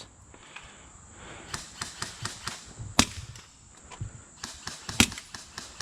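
Scattered small clicks and rustles, with two sharp single cracks about two seconds apart, the second the loudest.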